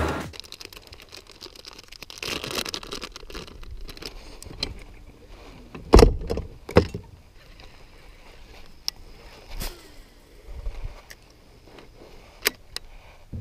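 Scattered clicks, taps and knocks of fishing gear being handled on a bass boat's deck, a rod and reel being worked, with two louder thumps about six and seven seconds in.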